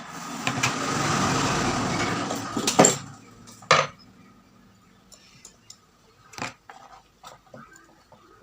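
A heating tool hisses for about three seconds while the old LED board is heated to loosen it, then cuts off. Light clicks and taps of small tools and parts follow.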